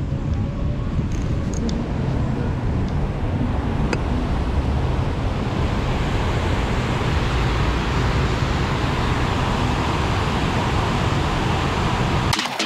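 Steady city street traffic noise, a continuous rush of passing vehicles. It cuts off abruptly just before the end.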